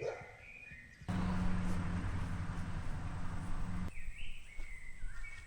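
Songbirds chirping. About a second in, they are covered by a louder steady noise with a low hum that lasts nearly three seconds and stops abruptly, after which the chirping is heard again.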